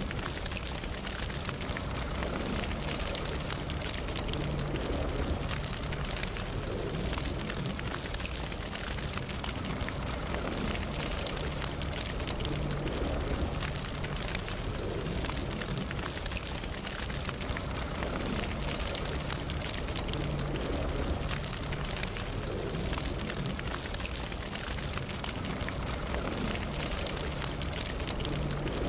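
Wood campfire burning steadily, with many small crackles and pops over a low rumble of the flames.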